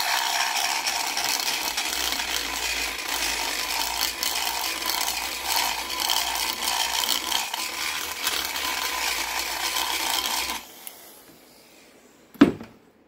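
Makita die grinder with a double-cut carbide burr running steadily and rasping away cast iron inside a cylinder-head port, porting the short side radius; it stops about eleven seconds in. A single sharp knock follows about a second and a half later.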